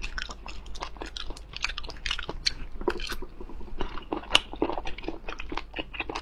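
Close-miked chewing of sea snail meat: a dense, irregular run of small sharp clicks from the mouth.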